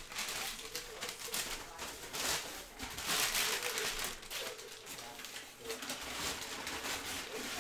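Crumpled packing paper crinkling and rustling as it is pulled out of a box by hand, loudest about three seconds in.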